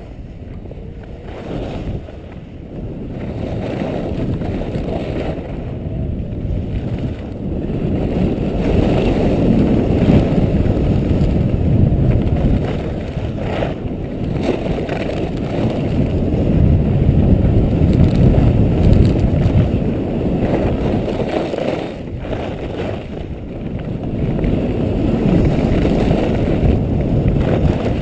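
Wind buffeting the microphone of a skier's action camera during a fast downhill run, a low rushing noise that swells and eases with speed.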